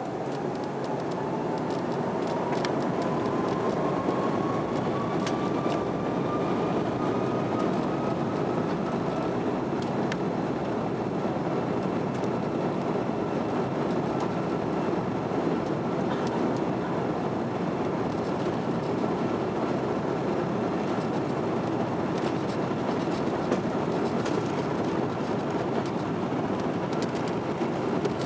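Airbus A330 cabin noise during takeoff: a steady loud rumble with the engines' whine rising in pitch over the first ten seconds, then holding at full thrust.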